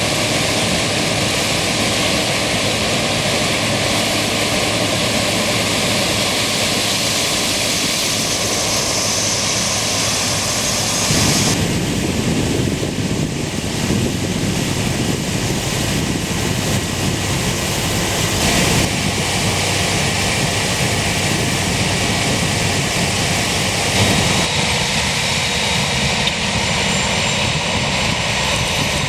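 Claas Lexion combine harvester working a maize field: a loud, steady mix of engine, threshing and corn-head noise. Its character shifts abruptly three times.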